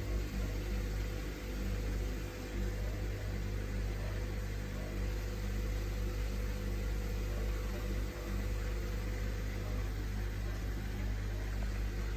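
Samsung WF1700WRW front-loading washing machine running mid-cycle with a steady motor hum.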